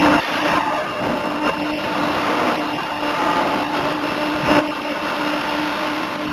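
Forging hammer machinery running: a steady industrial hum and noise with a few light knocks, the clearest about four and a half seconds in, and no heavy blow.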